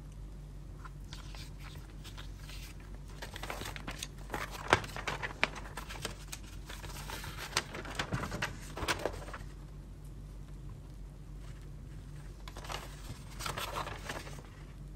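Paper instruction manual rustling and crinkling as it is handled, unfolded and its pages turned, in bursts of crackly rustles with pauses between them. The busiest handling comes between about four and nine seconds in, with another short burst near the end.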